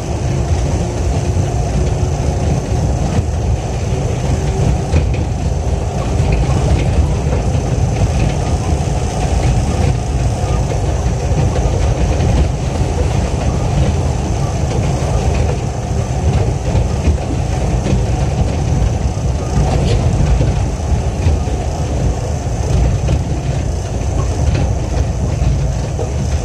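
Interior running noise of a Yamaman 1000 series rubber-tyred guideway transit car travelling at steady speed: a steady low rumble with a thin high tone over it.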